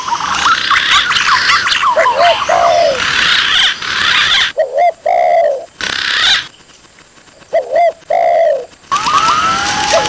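Spotted doves cooing in repeated short phrases, mixed with the wandering, gliding whistles of green pigeons: a looped bird-lure call track. The whistling thins out in the middle, leaving a brief lull about seven seconds in.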